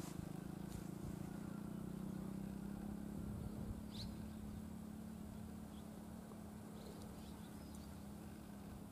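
A steady low engine hum from a distant vehicle, slowly fading, with a short bird chirp about four seconds in and a few faint chirps near the end.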